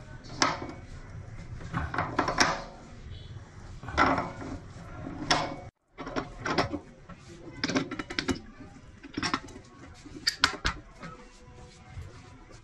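Adjustable wrench working the nut at the base of a faucet on a stainless steel sink: repeated metallic clicks, clanks and scraping as the wrench grips and turns.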